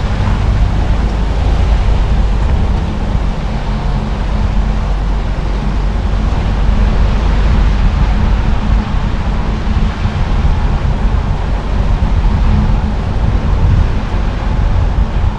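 Steady road and engine noise of a moving car: a continuous low rumble with a hiss above it.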